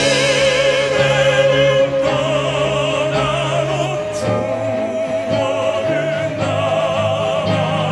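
Male vocal quartet singing live in an operatic crossover style, the voices holding long notes together in harmony with wide vibrato over instrumental accompaniment whose bass notes change every few seconds.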